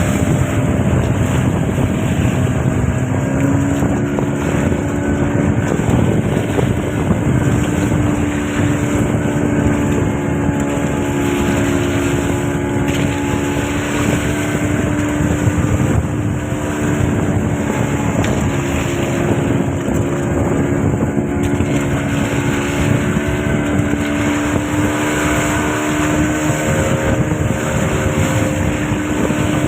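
A boat engine running steadily under way, with wind noise on the microphone. The engine pitch rises slightly about three seconds in, then holds.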